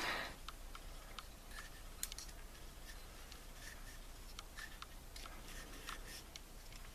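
Faint scattered clicks and light scrapes of small metal lock parts and tools being handled on a work surface while a lock is taken apart, one click a little sharper about two seconds in.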